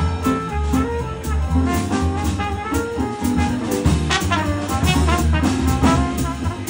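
Live small-group jazz: a trumpet playing a melodic line over drum kit and low bass notes.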